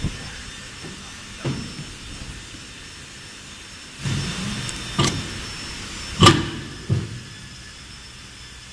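Steady running hiss of a silicone-rim glass lid moulding press, with several sharp metal clanks and knocks as the mould stands open; the loudest clank comes a little past the middle.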